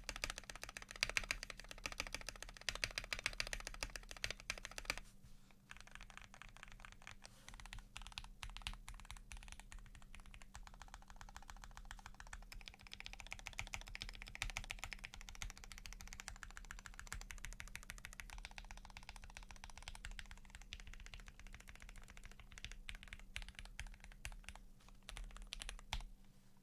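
Continuous fast typing on a custom 65% mechanical keyboard (Tofu65 case, brass plate, PBT keycaps) fitted with lubed Gateron PRO Yellow linear switches. The keystrokes are louder for about the first five seconds, then lighter until they stop just before the end.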